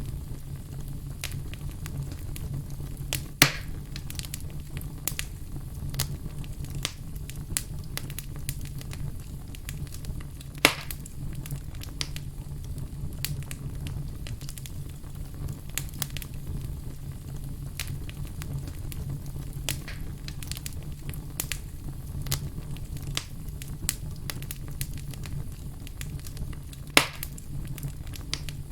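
Logs burning in a fireplace: a steady low rumble of flame with constant small crackles. Three sharp, much louder pops come about three seconds in, about eleven seconds in, and near the end.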